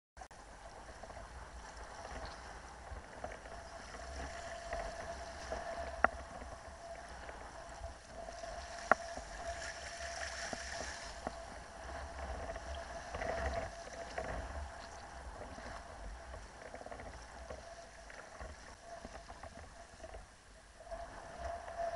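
Kayak being paddled through choppy water: water splashing and lapping around the hull, with wind rumbling on the microphone. A faint steady tone runs under it, and two sharp clicks come about six and nine seconds in.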